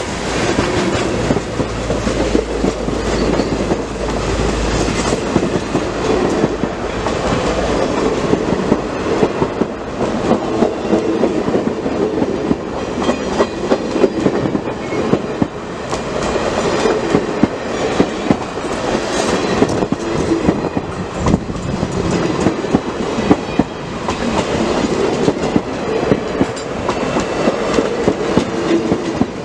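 Steam-excursion train's baggage and stainless-steel passenger cars rolling past at close range: steel wheels clicking and rattling over the rail with a steady rumble, deeper in the first few seconds.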